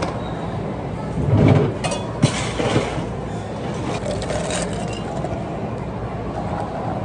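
Ice clattering as it is scooped with a metal ice scoop and tipped into a plastic cup. The clatter comes in rough bursts about a second in and again around four seconds in. A steady low mechanical hum runs underneath.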